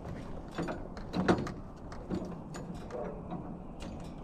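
A series of irregular knocks and clicks, the loudest a little over a second in, over a low steady rumble.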